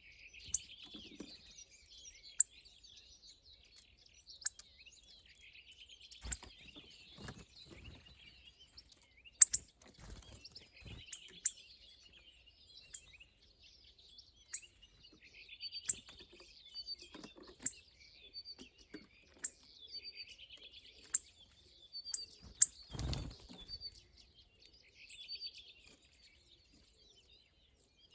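Small birds twittering continuously, with loud sharp chirps at irregular intervals and a few soft low thumps in between.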